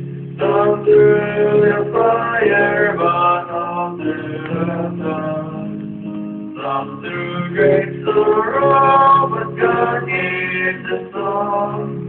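Two young male voices singing a gospel hymn as a duet through microphones, over guitar accompaniment.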